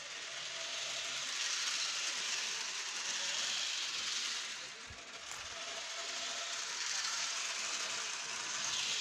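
HO-scale Thomas the Tank Engine toy train running on its plastic track: a steady hissing whir with a faint whine coming and going, and a soft knock about halfway.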